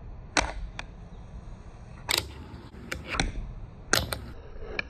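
Fingerboard clacking against a metal table: a string of sharp, irregular clicks and knocks, about eight in all, some louder than others.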